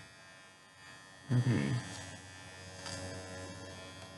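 Electric pet hair clippers running with a steady hum while trimming a Shih Tzu's long facial hair, louder from about two seconds in.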